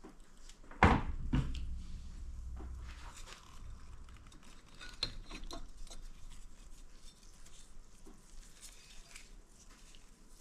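Metal parts clanking during an automatic transmission teardown. A sharp metallic knock about a second in is the loudest sound, followed quickly by a second knock and a low rumbling tail. Scattered lighter clinks and taps follow, with a cluster about halfway through.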